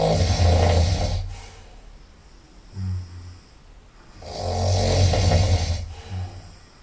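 A person snoring loudly through the nose: two long snores about four seconds apart, each with a low buzz, and a shorter, softer snort between them and after the second.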